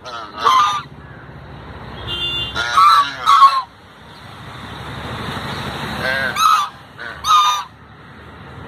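Domestic goose honking: five loud, short honks, singly and in pairs, a second or more apart.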